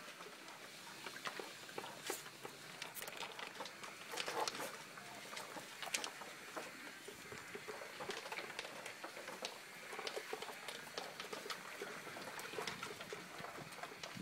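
Dogs eating dry kibble from plastic slow-feeder bowls: irregular crunching, with the pellets clicking and rattling against the plastic as the dogs nose them out.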